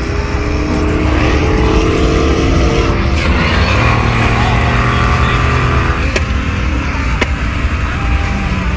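Loud V8 muscle-car engines running, the steady drone shifting in pitch as they rev, with two short sharp cracks about six and seven seconds in.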